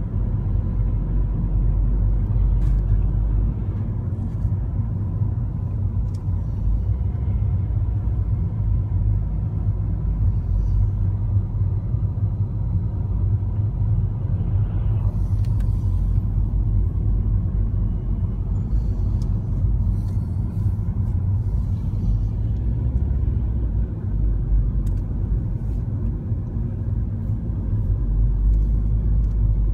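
Steady low rumble of a car driving slowly, heard from inside the cabin: engine and tyre noise, with a few faint clicks.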